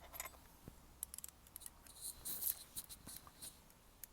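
Irregular light metallic clicks and scrapes of a hand tool working on the bolt of a motorcycle gear shift lever, with a brief rasping cluster about two seconds in.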